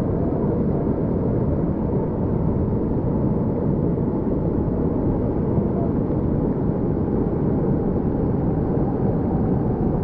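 Fast, shallow river water rushing over rocks and small cascades: a steady, deep rush of water.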